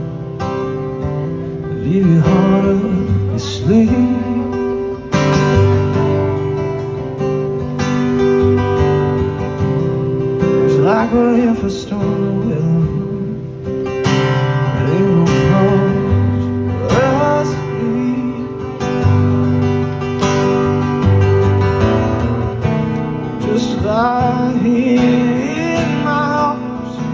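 Acoustic guitar strummed steadily in a live solo song, with a man's voice coming in over it in short sung phrases every few seconds.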